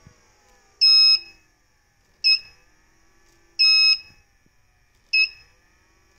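Electronic power-fault alarm beeping in an alternating long–short pattern, four high piercing beeps about a second and a half apart, with a faint falling fan hum under the first ones. The server power supply's output is dropping out because its cable has a bad connection at the power distribution board.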